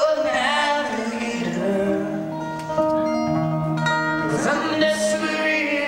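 Live acoustic folk-rock band playing: strummed and picked acoustic guitars with held notes, and some singing without clear words.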